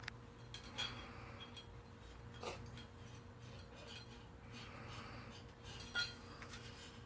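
A cat eating from a dish: scattered clinks and crunches of food against the bowl, the loudest about six seconds in.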